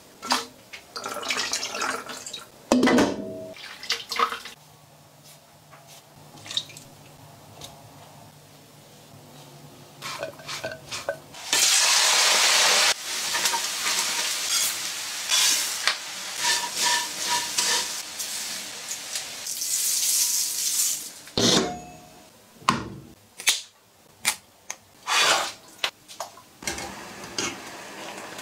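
Home-kitchen cooking sounds: water splashing, pots, pans and utensils knocking and clinking, and food being stirred in a pan, with a loud stretch of steady hiss about halfway through.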